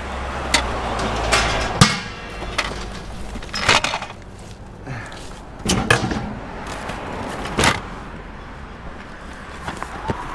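A vehicle driving slowly with a steady low engine rumble, while a load of scrap clunks and rattles sharply every second or two.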